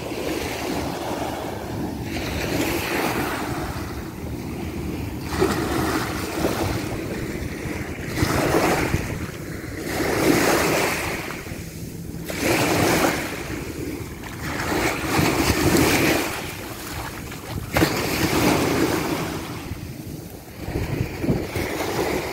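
Small waves breaking and washing up onto a sandy shore, the surf swelling and falling back every two to three seconds, with wind rumbling on the microphone.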